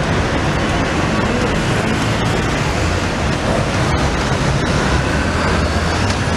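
Street traffic with a column of police motorcycles riding toward and past, their engines running under a steady rush of road noise.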